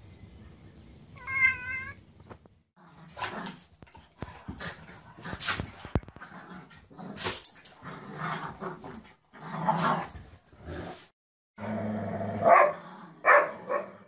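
A cat meows once, briefly, about a second in. Then dogs play-fighting, with a run of short growls and barks.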